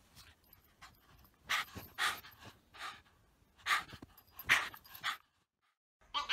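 A dog panting hard in short breathy puffs, about seven in a few seconds, worked up from bounding through deep snow; it cuts off abruptly near the end.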